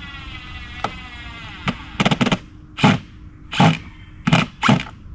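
A cordless power drill driving screws: a steady motor whine, then a short rattling burst followed by four loud short bursts of the driver, about two thirds of a second apart.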